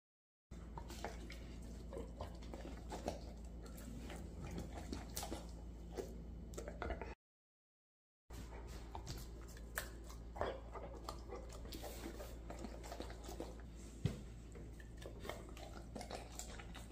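Bernese mountain dog moving about on a hard kitchen floor, its claws clicking, with wet mouth sounds of the dog taking and chewing food, over a steady low hum. The sound drops out for about a second twice, and one sharper knock comes near the end.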